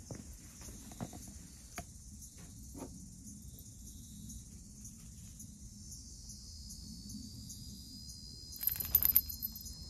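A cat's small collar bell jingling in a short, bright flurry about a second before the end, the loudest sound here, over a steady high-pitched insect chirring; a few faint ticks come earlier.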